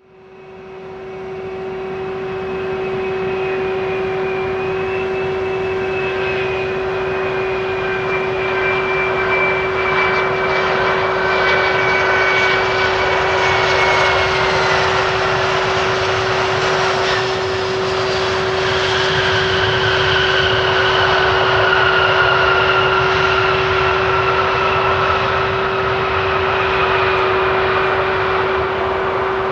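Boeing 737-400's CFM56-3 turbofan engines on a landing pass: steady jet noise with a high whistling whine that slides slowly down in pitch as the aircraft goes by. It fades in over the first couple of seconds and grows louder about halfway through.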